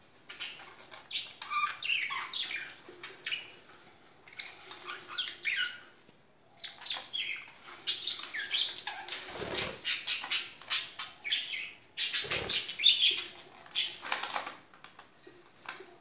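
Several budgerigars chattering in a cage: a continuous stream of fast, high chirps and warbles, with two brief louder bursts of wing flapping in the second half.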